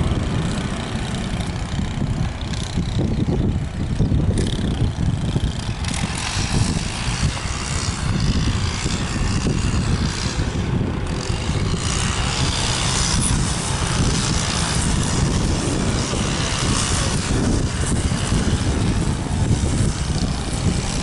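Strong wind buffeting the microphone in a steady low rumble, with a hiss that grows louder from about six seconds in.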